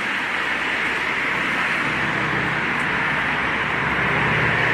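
Steady outdoor background hiss with no distinct event in it.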